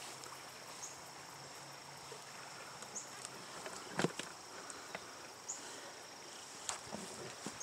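Steady high-pitched insect trill, like crickets, with a few short higher chirps, broken by a few sharp knocks, the loudest about four seconds in.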